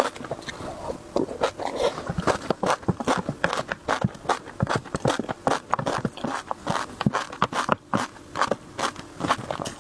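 Close-miked chewing of crunchy food, a fast, irregular run of crisp crunches and mouth clicks.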